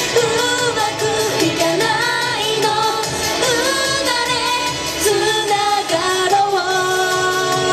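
Upbeat Japanese idol pop song: young women singing a bright melody into a microphone over pop music with a steady beat.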